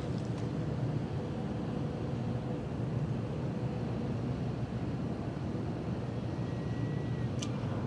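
Steady low rumble of ship and tug diesel engines carrying across the water, with a faint thin whistle-like tone near the end followed by a short sharp tick.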